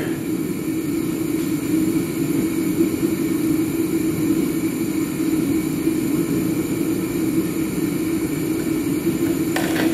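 A machine running with a steady low drone that does not change.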